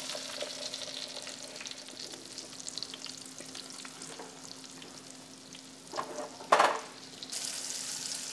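Floured, prosciutto-wrapped pork medallions sizzling in hot olive oil and butter in a frying pan. About six and a half seconds in there is a brief louder clatter, and after it the sizzling grows louder.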